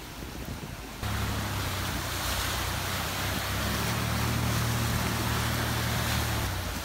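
Muddy water surging and splashing over the bonnet of a 4WD driving through a flooded track, over the steady low hum of its engine under load. The rushing starts suddenly about a second in and the engine hum drops away near the end.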